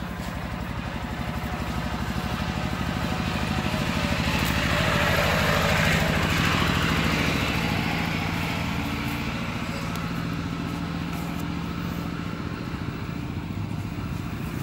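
A motor vehicle engine running steadily, swelling louder toward the middle and fading again.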